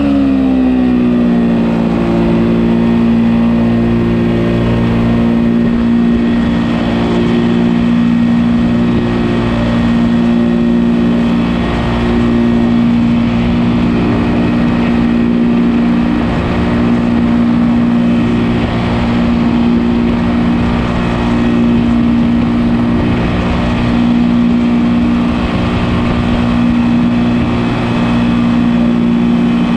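Engine and propeller of an open-cockpit ultralight aircraft droning in flight, with wind rushing past. The engine's pitch drops over about the first second, then holds steady.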